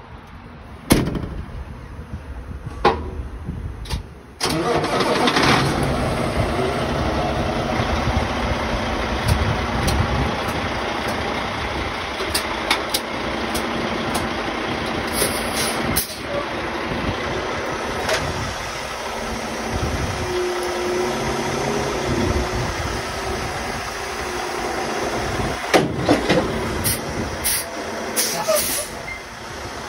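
Semi-tractor diesel engine starting abruptly about four seconds in, then running steadily as the tractor pulls forward out from under the trailer. A few sharp knocks are heard in the first seconds and again near the end.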